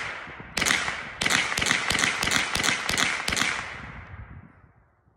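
.22 Long Rifle rifle firing a shot, then a fast string of about a dozen shots a few per second, each crack trailing an echo that fades out after the last one.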